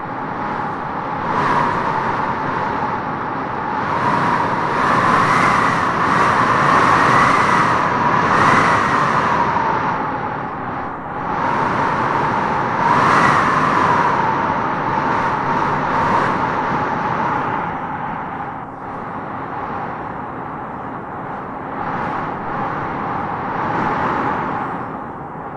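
Wind blowing in gusts, a steady rush with a howling whistle that swells, rises in pitch and falls back several times, strongest in the middle of the stretch.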